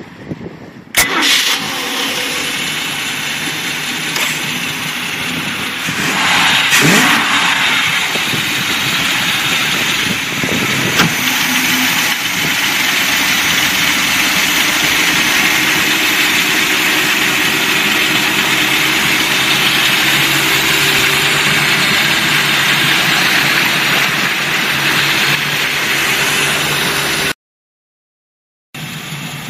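1989 Sea Ray bow rider's carbureted inboard engine running with the engine hatch open: the revs rise briefly about six seconds in, then it idles steadily. The sound drops out for a moment near the end.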